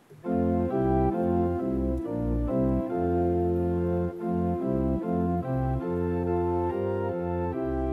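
Keyboard in an organ voice playing sustained chords over a moving bass line, starting just after the hymn is announced: the introduction to the offertory hymn.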